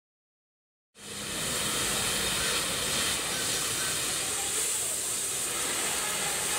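About a second of silence, then an oxy-fuel cutting torch hissing steadily as its jet cuts through the steel edge of an excavator bucket.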